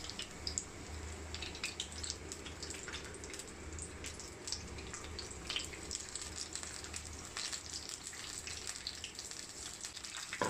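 Besan-battered paneer pieces deep-frying in hot oil: a steady sizzle with many small crackles and pops.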